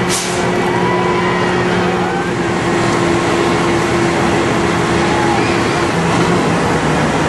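Crane engine running steadily while the statue hangs on its cables, a constant drone that drops slightly in pitch about six seconds in.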